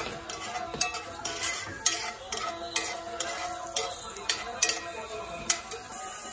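A metal spoon clinking against a cast-iron skillet as cubes of tuna are stirred and turned in oil, sharp clinks about twice a second that stop near the end.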